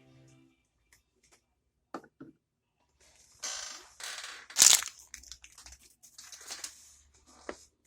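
Toy packaging being handled and crinkled: a few light clicks, then a few seconds of rustling with one sharp crackle in the middle, as a surprise toy is unwrapped.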